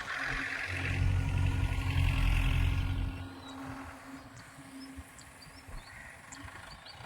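A vehicle engine rumbles for about three seconds and then fades away, leaving quiet outdoor ambience with short, high bird chirps.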